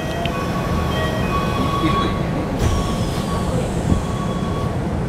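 Keikyu New 1000 series commuter car standing at a platform over a steady low hum, its passenger doors sliding shut with a thud about two and a half seconds in. Intermittent electronic beeping tones sound throughout.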